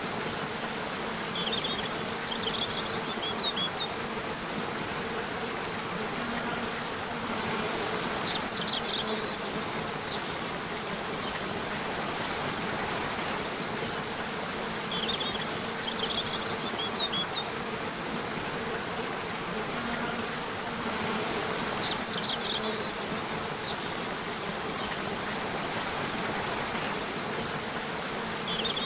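Nature soundscape: a steady rushing background with a low buzzing hum, and a bird repeating a short, high chirping song phrase about every six or seven seconds.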